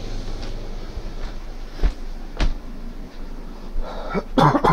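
A cat meowing near the end over a steady low hum, with two short knocks about two and two and a half seconds in.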